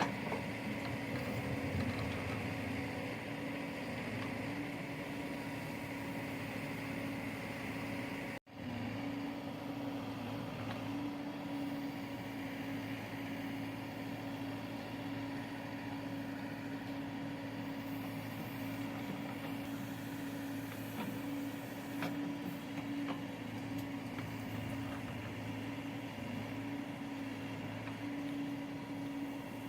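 Diesel engine of heavy machinery running steadily at an even speed, with a constant hum. The sound cuts out for an instant about eight seconds in, then carries on unchanged.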